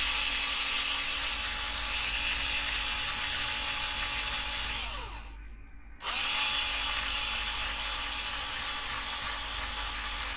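Small electric drill boring out a rivet post on a diecast toy car's metal baseplate. The motor runs steadily, winds down and stops about five seconds in, then starts again a second later and runs on.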